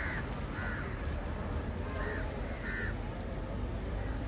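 Crows cawing, several short caws a second or so apart, over a steady low background rumble.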